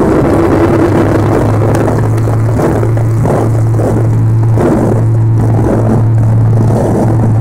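The ATR 72-500's turboprop engines and propellers, heard from inside the cabin as the aircraft rolls along the runway: a loud, steady drone whose low tone steps up in pitch about a second and a half in and then holds.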